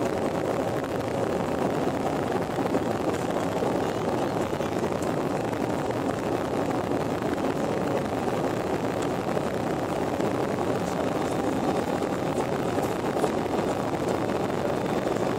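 Steady rushing noise of engines and airflow heard inside a jet airliner's cabin on approach, with the wing flaps extended.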